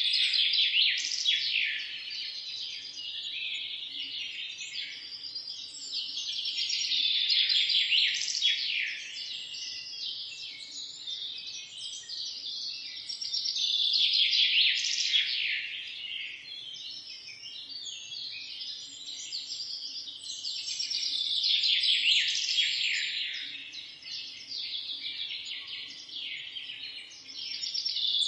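A flock of small birds chirping, dense overlapping high chirps that swell louder and fade back about every seven seconds.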